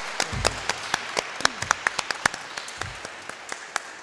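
Audience applause, many hands clapping irregularly, thinning out toward the end.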